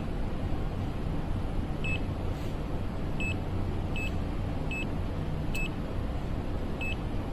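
Pen-type digital multimeter's small buzzer giving about six short, high beeps at uneven intervals, over a steady low hum.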